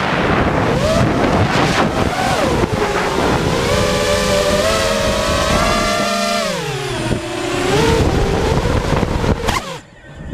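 FPV quadcopter drone's motors whining, their pitch rising and falling with the throttle, over a rush of wind noise. The sound drops away sharply near the end.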